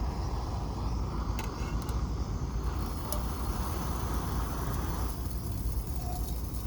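Steady low rumbling outdoor background noise, like distant road traffic or wind on the microphone, with a few faint ticks.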